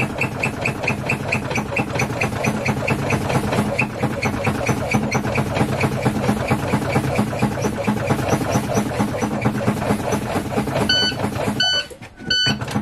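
A steady, fast-pulsing mechanical running sound that stops abruptly about a second before the end. Then the truck's low air pressure warning buzzer beeps in even pulses, the alarm that sounds when the brake pedal is pumped and the air tank pressure drops toward 55 PSI.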